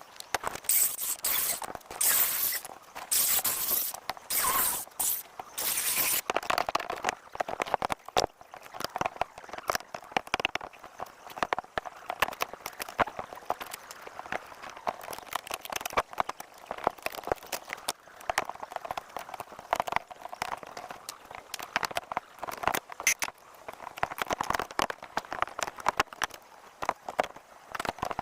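Hand demolition of a leak-damaged balcony deck: a run of sharp knocks with crunching and scraping as boards and subfloor are pried and torn off. The noise is densest for the first six seconds or so, then scattered knocks follow.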